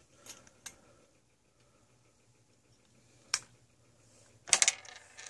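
A few isolated small sharp clicks, then a quick louder cluster of clicks about four and a half seconds in, as the SR626SW button-cell battery pops out of the cheap quartz watch movement.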